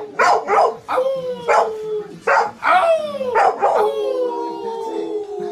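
Pit bulls barking and howling: short sharp barks between long howls that slowly fall in pitch, with two howls overlapping near the end.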